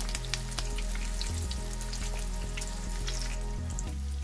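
Chicken shami kababs shallow-frying in hot oil in a non-stick pan: a steady sizzle with frequent small crackles and pops.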